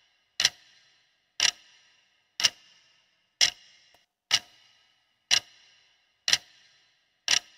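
Countdown-timer ticking sound effect: clock ticks once a second as the timer runs down, eight in all, each a sharp click with a brief ringing tail.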